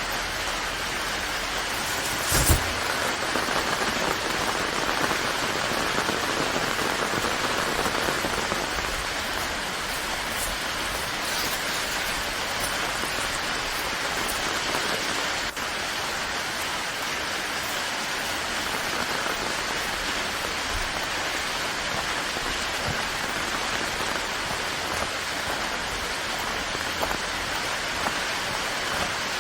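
Steady rain falling on surfaces, an even dense hiss of drops, with one sharp tap about two and a half seconds in.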